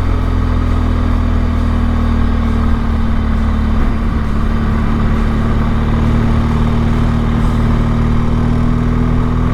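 Motorcycle engine running with a steady, unchanging note.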